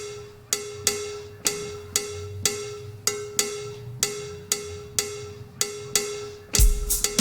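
Sampled cowbell from a round-robin sampled drum kit, struck about twice a second, each hit ringing at the same pitch. Near the end a full drum kit with kick drum and cymbals comes in.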